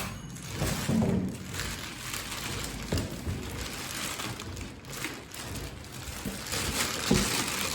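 Packaging being unwrapped and handled: rustling of plastic wrap and cardboard, with a few knocks against the heater's metal body.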